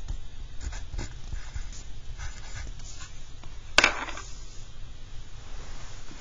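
Pencil writing on paper: soft, scattered scratching strokes, then a single sharp knock about four seconds in.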